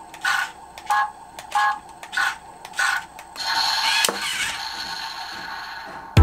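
Small electric motors of an RC water-bead tank whirring in five short bursts about two-thirds of a second apart. Then one longer run with a wavering pitch and a sharp click partway through.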